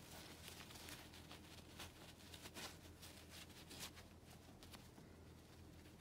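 Faint, irregular rustling and light scuffing of gloved hands handling a rusty steel adjustable wrench and a cloth rag.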